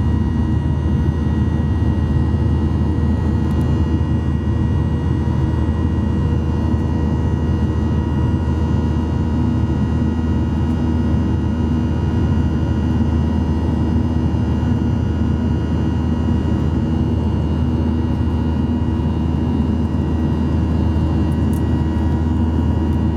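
Boeing 737-800's CFM56-7B jet engines heard from inside the cabin: a steady low rumble with a constant hum of several even tones.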